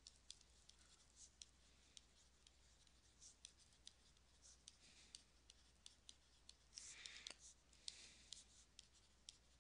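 Near silence with faint scattered taps and soft scratches of a stylus writing on a pen tablet, a little busier about seven to eight seconds in.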